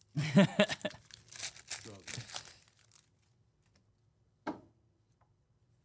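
Foil wrapper of a Panini Select basketball trading-card pack being torn open and crinkled by hand for about three seconds, with a brief voice mixed in; one short sound follows later.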